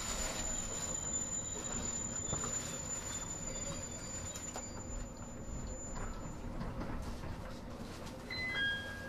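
Cabin noise of a Sendai Airport Line electric train running between stations: a steady rumble of wheels and running gear, with a thin high whine that fades out about two-thirds of the way through. Near the end comes a quick run of four short beeps, each lower than the last.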